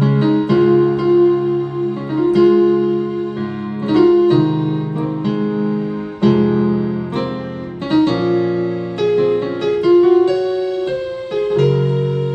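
Portable digital keyboard played with both hands in a piano voice: slow, sustained chords, with a new chord struck every second or two.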